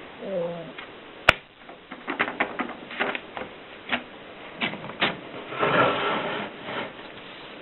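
Erika S manual typewriter in use: a sharp loud clack about a second in, then a run of uneven keystrokes. A longer rasping stretch of mechanism noise follows near the end.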